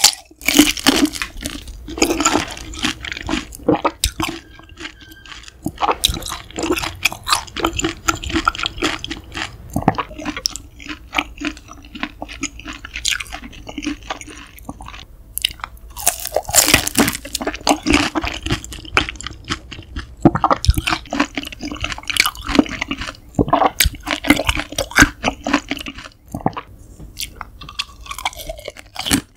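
Close-miked eating sounds of grilled beef large intestine (daechang): repeated wet bites and chewing with crisp crunches. The loudest clusters come just after the start and again about halfway through.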